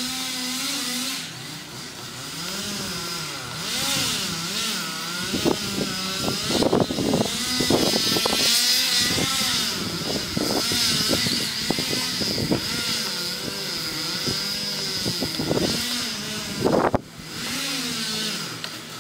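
Chainsaw engine running and cutting, its pitch rising and falling again and again as the revs change, with several sudden sharp loud moments in the middle and again near the end.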